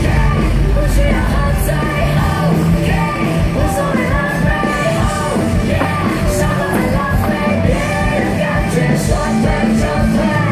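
Loud music with singing and yelled vocals over a steady, heavy bass line.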